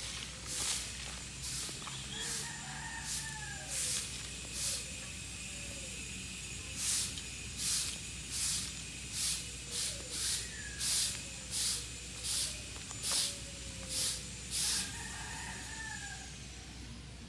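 Chickens clucking in the background. Over them runs a series of short hissing pulses, irregular at first and then steady at about one every three-quarters of a second.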